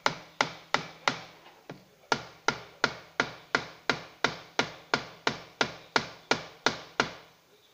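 Regular series of sharp metal taps, about three a second, each with a short ring, on the steel housing of a starter motor being reassembled. There is a brief break about a second in.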